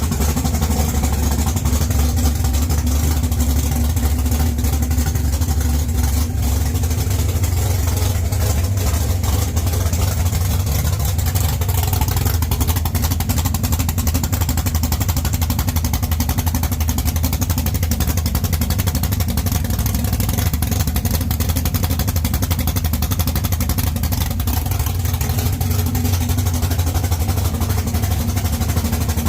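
The 1969 Camaro drag car's engine running at a steady idle.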